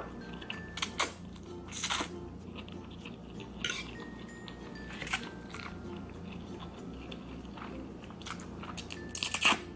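A person chewing and biting food close to the microphone, with short scattered bursts of mouth noise and the loudest cluster near the end.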